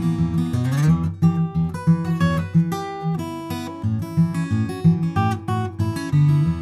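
Taylor 914ce acoustic guitar with solid East Indian rosewood back being fingerpicked: melody notes over a repeating bass pattern, with a quick rake up across the strings just under a second in.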